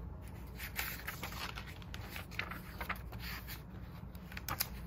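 Thin paper pages of an A6 Hobonichi Techo planner being leafed through by hand: a run of quick, short papery flicks and rustles, a few louder ones near the end.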